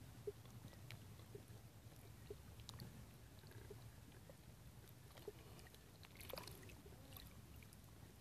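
Near silence: a faint low hum with scattered soft clicks and ticks, a small cluster of them about six seconds in.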